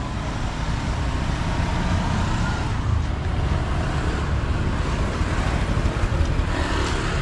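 Street traffic noise: motor vehicles running and passing steadily.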